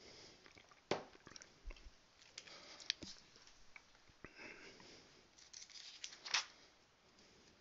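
Faint room tone in a small room, with a few scattered soft clicks and quiet sniffing and breath noises close to the microphone.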